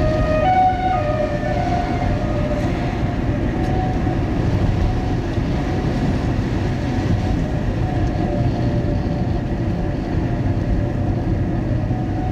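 A siren wailing in wavering, on-and-off tones over a loud, steady rumble.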